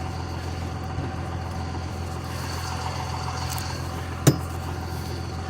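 A vehicle engine idling steadily with a low hum, and one sharp knock a little past four seconds in.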